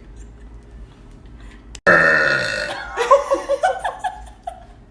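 A girl's loud burp, starting suddenly about two seconds in and lasting about a second, its pitch falling, followed by a few shorter vocal sounds.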